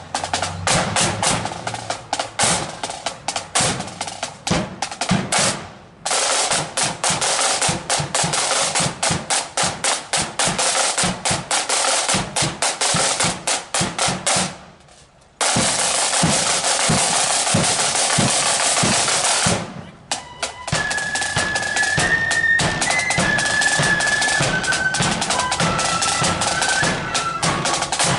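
Flute band's marching snare drums playing fast rolls and rudiments over a bass drum beat. Two brief abrupt breaks come in the middle, and a faint high melody line of held notes joins about two-thirds of the way through.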